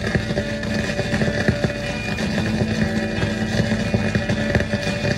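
Vinyl record playing on a turntable: a dense, droning passage with steady held tones and many clicks and crackles.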